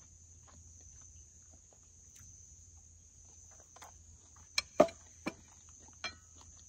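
A steady, high-pitched chorus of insects trilling. Between four and six seconds in, a few sharp clinks of a spoon against a plate as the plate is set down on a wooden table; the loudest comes just before five seconds.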